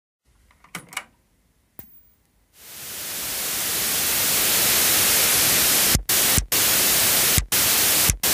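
An electronic static-like white-noise effect. It opens with a few faint clicks, then fades in and swells to a steady hiss. From about six seconds in it cuts out in short gaps that come faster and faster near the end.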